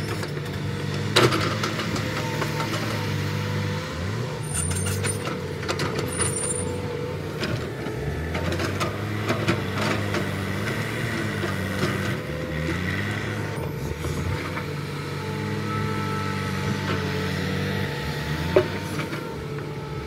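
Diesel engine of a JCB tracked excavator running under hydraulic load, its pitch dipping and rising as the boom and bucket dig into the bank. Two sharp knocks stand out, about a second in and near the end.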